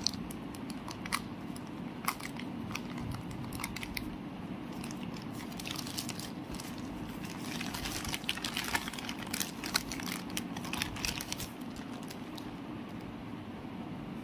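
Plastic courier mailer bag being torn open and handled: crinkling and rustling with scattered sharp crackles, busiest in the second half, over a low steady hum.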